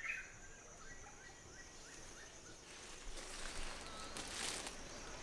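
Forest ambience: a steady high insect drone, with a bird chirping a quick series of short notes in the first two seconds. A soft hiss of noise swells for a couple of seconds near the end.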